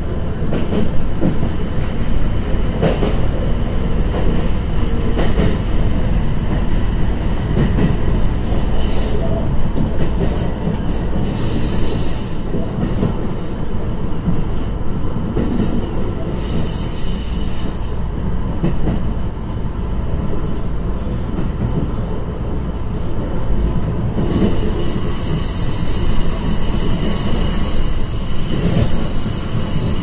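Cabin sound inside a KiHa E120 diesel railcar under way: steady engine and wheel-on-rail running noise, with high wheel squeal coming in briefly around the middle and again through the last few seconds.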